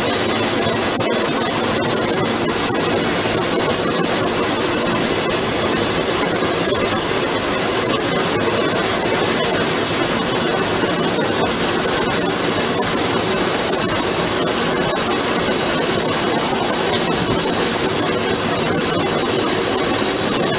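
DAMA GMDC-3100 high-speed CNC drilling and cutting machine cutting into a metal plate under external mist cooling: a dense, steady hiss with a steady hum underneath, unchanging in level.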